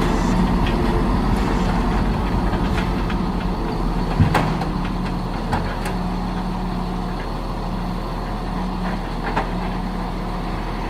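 Large truck engine running steadily, with a few sharp knocks, the loudest about four seconds in.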